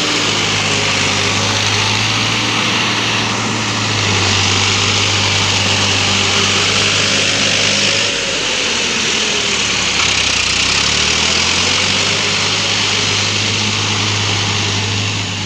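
Diesel tractor engine running steadily at working speed, its pitch shifting a little about four seconds in and again around the middle.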